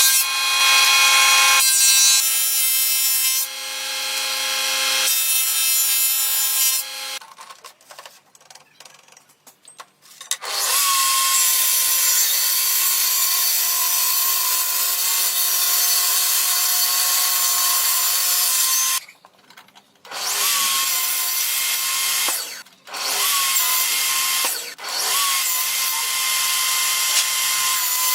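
Electric power tools working wood in a string of short clips: a steady motor whine for the first several seconds, a few seconds of light knocks and clicks, then a tool starting up and running loudly on the wood, cut off and started again several times.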